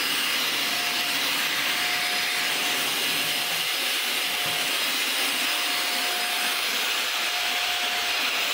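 Vacuum cleaner running steadily: an even rush of air with a steady high whine from the motor.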